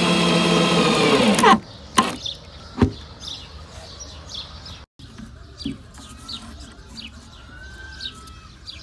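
Cordless power drill driving a screw into a wooden plank, its motor whine dropping in pitch as it stops about a second and a half in, followed by two knocks. Birds then chirp faintly.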